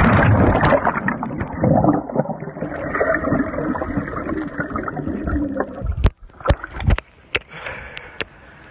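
Water heard through an action camera's microphone while it is under water: a loud, muffled wash of water noise. About six seconds in it breaks the surface with several sharp cracks and splashes, then fainter lapping water.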